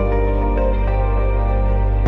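Background music of sustained chords over a held low bass note, shifting to a new chord near the end.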